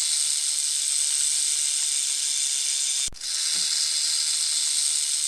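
Snake hissing: a long, steady hiss, broken off briefly about three seconds in before it starts again.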